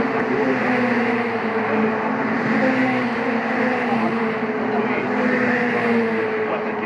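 Engines of several Mitjet series race cars running hard on a street circuit: a steady, continuous engine note whose pitch drifts only slightly as the pack passes and pulls away.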